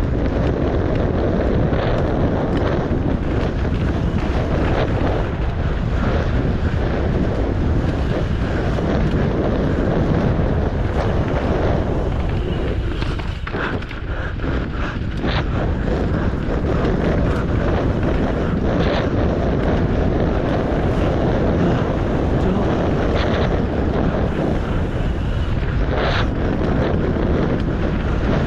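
Steady, loud wind noise buffeting a GoPro Hero 8's microphone as a mountain bike rides fast down a dirt trail, mixed with tyre rumble on the dirt. A few sharp clicks and knocks cut through now and then.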